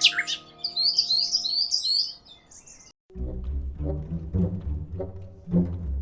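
A songbird chirping in a quick warbling run for about two seconds over soft held music tones. After a short pause, music with plucked low bass notes starts about halfway through.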